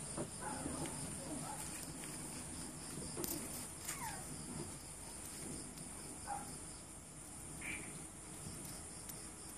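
Steady high insect chirring, with a few short falling squeaks from young pit bull puppies about four seconds in, past six seconds and near the end.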